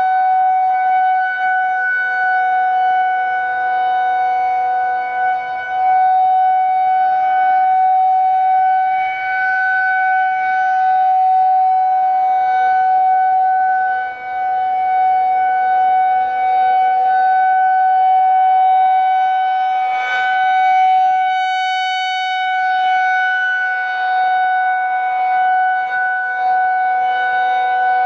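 Federal Signal 2001-130 rotating warning siren sounding a steady tone during a tornado siren test. Its volume swells and fades every eight or nine seconds as the horn turns toward and away from the listener, and it sounds brighter for a moment when the horn faces straight on, about three-quarters of the way through.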